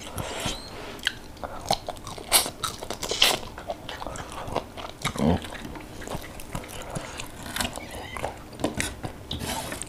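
Close-miked eating by hand: chewing and crunching, with many short sharp mouth clicks and smacks.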